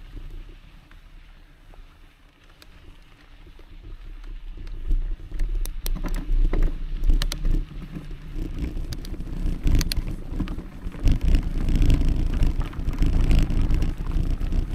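Mountain bike rolling along a dirt forest track: tyre rumble and wind on the microphone, with short rattling clicks from the bike over bumps. Quieter for the first few seconds, louder from about four seconds in.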